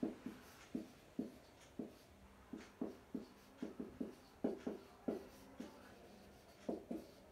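Marker pen writing on a whiteboard: a quiet run of short, irregular strokes as terms are written out.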